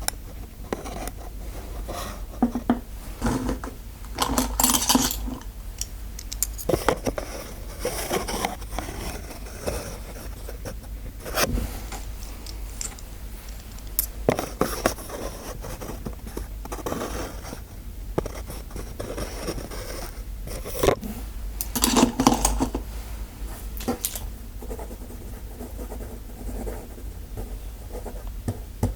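Small metal dental-roleplay tools scraping, scratching and clicking close to the microphone in irregular short strokes, with a louder scrape twice.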